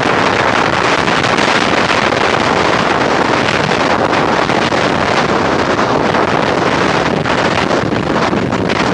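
Strong storm wind blasting across a camcorder microphone, a loud, steady rush of noise with no breaks.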